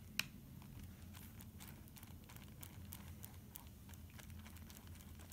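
Faint scratching and crinkling of a paintbrush working glue over newspaper strips on a papier-mâché form, in many small irregular ticks, with one sharper click just after the start over a low steady hum.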